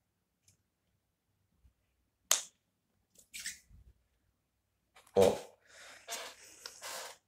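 Handling noises of a smartphone and a piece of plastic: a sharp click about two seconds in, a brief rustle, then a knock a little after five seconds followed by about a second and a half of rustling.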